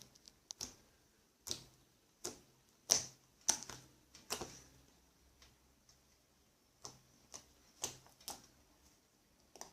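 Homemade slime being squeezed and worked by hand, giving off sharp, irregular clicking pops, about a dozen of them with a pause of a couple of seconds in the middle.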